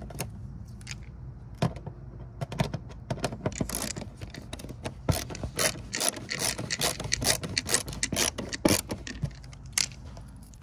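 License plate screws being turned in by hand with a driver, through the metal plate into a thin plastic bracket: irregular clusters of scraping and clicking from the tool on the screw heads and the plate, busiest in the middle.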